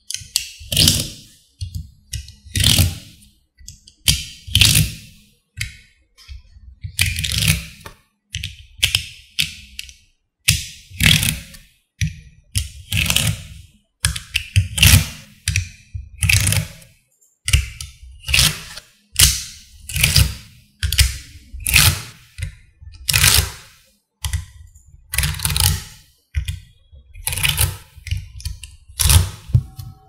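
Small magnetic balls clicking and clattering as they snap together, in repeated short bursts about once a second, each a quick cluster of hard clicks with a low thunk under it.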